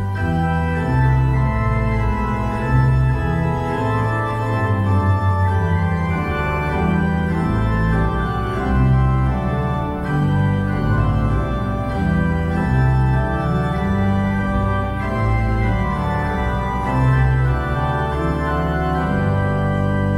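Church organ playing a hymn: held chords over a bass line, moving to a new chord about once a second.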